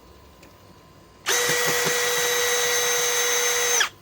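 Cordless M12 drill driver spinning a screw out of wood at clutch setting 12: a steady, even-pitched motor whine that starts about a second in and cuts off suddenly after about two and a half seconds.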